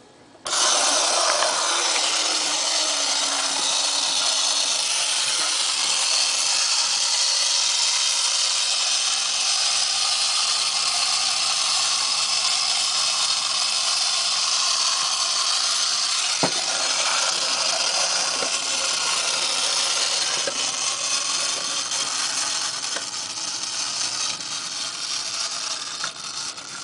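Mechanical Planet Robot tin wind-up toy's clockwork drive and face-mask spark mechanism running as it walks: a steady, loud rasping whir. It starts suddenly as the toy is set going, with a low hum sinking slightly in pitch over the first few seconds. It weakens a little toward the end, then stops abruptly.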